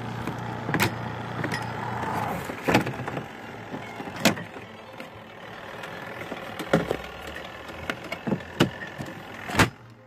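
Costway twin-tub mini washing machine's spin cycle running empty, a steady mechanical hum whose low part eases off about two seconds in. About seven sharp knocks or clicks come at irregular moments throughout.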